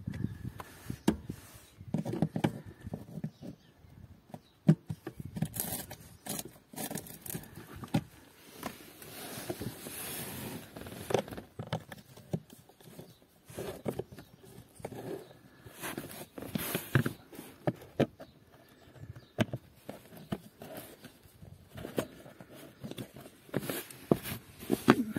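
Screwdriver turning the half-turn fasteners on a Fiat Ducato's rubber-matted cab floor panel: irregular clicks, knocks and scrapes of metal in the fasteners and on the panel.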